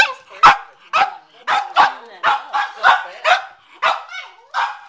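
Cavalier King Charles Spaniel barking in a rapid, unbroken series of short barks, about three a second.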